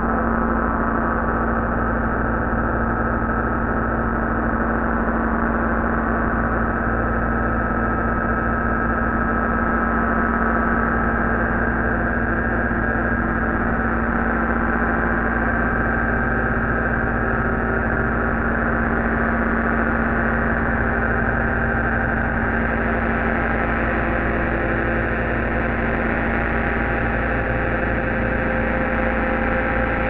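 Homemade analog noise and square-wave synthesizers, run through a Boss GT-8 effects unit, playing a dense, steady electronic drone. Several held tones sit over a deep hum, and a few higher tones slowly come in and fade out.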